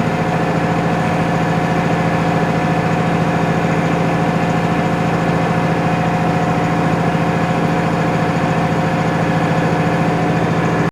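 Farm tractor's diesel engine running steadily at an even pitch, a constant hum with no change in speed.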